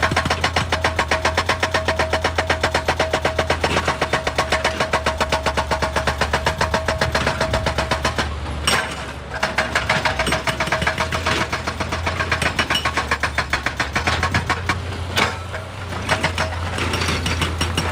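Hydraulic rock breaker on an excavator hammering rock, a fast even pounding of about ten blows a second over the steady drone of the machine's engine, stopping briefly twice.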